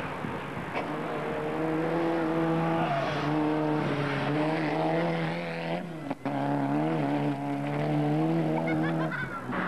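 Rally car engine held at high revs, a steady strained note with gravel and tyre noise, briefly cut about six seconds in before picking up again.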